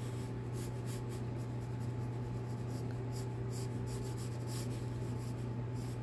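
No. 2 pencil scratching across drawing paper in a run of short, quick sketching strokes, over a steady low hum.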